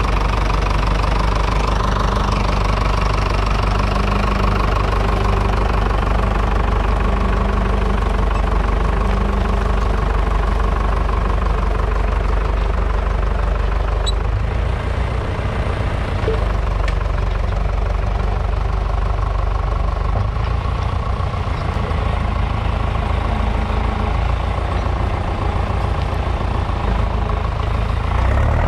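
Fordson Power Major's 3.6-litre four-cylinder diesel engine running steadily under load, pulling a three-furrow mounted plough through the soil.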